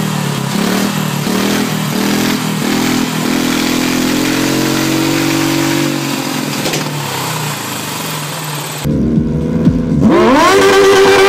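Small turbocharged Honda engine on a go-kart running, revved in several quick blips in the first few seconds and then held at a steady fast idle. About nine seconds in, a louder drag-racing kart engine takes over and accelerates hard, its pitch climbing steeply.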